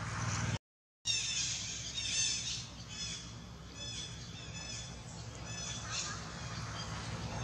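Newborn macaque giving repeated short, high-pitched squeaking calls, densest just after the start and fading to fainter squeaks, over a steady low hum.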